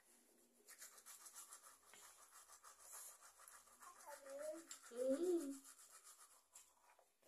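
A toddler brushing her teeth with a manual toothbrush: faint, rapid scratchy scrubbing of the bristles. The child's voice gives two short gliding sounds, about four and five seconds in, the second the loudest.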